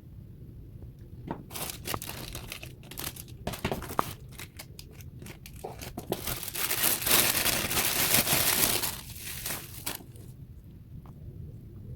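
Packaging being unwrapped by hand: crinkling and rustling in scattered bursts, then a louder, continuous stretch of crinkling in the middle that dies away about ten seconds in.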